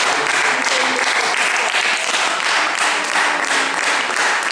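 Group of people applauding steadily, a dense patter of many hands clapping at once.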